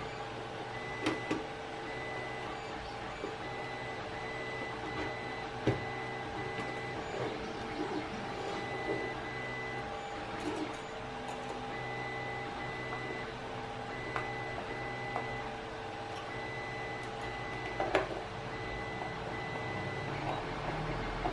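A steady machine hum with faint high tones, one of them breaking on and off, under a few sharp clicks and knocks as the plastic chartplotter chassis and a small screwdriver are handled: about a second in, near six seconds and again near the end.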